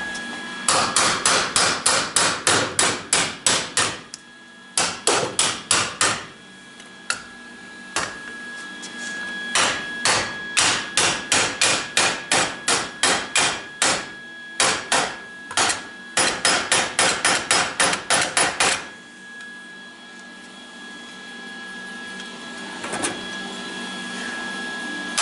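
Hammer pounding a steel chock tab: quick runs of sharp, ringing blows, about three or four a second, broken by short pauses, then quieter near the end.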